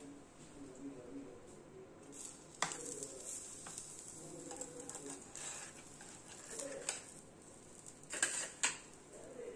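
A metal pizza cutter knocking and scraping against the ridged plates of an electric sandwich grill as the toasted sandwich is cut and lifted out: a handful of sharp clinks and knocks, the loudest two close together near the end.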